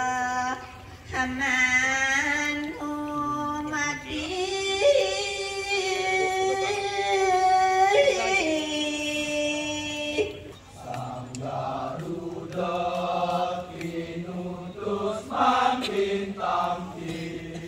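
A solo performer of a Balinese Kecak dance chanting in long, held notes. About ten seconds in, a lower voice takes over, chanting in shorter phrases.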